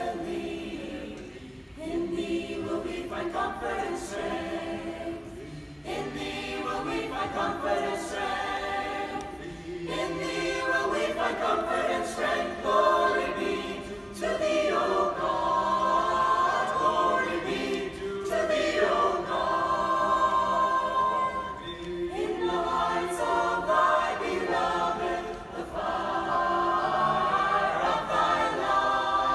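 Mixed choir of men and women singing in phrases a few seconds long, with long held notes and brief breaks between phrases.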